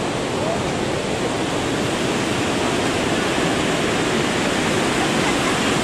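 Waterfall and river rapids rushing steadily, an even unbroken roar of white water.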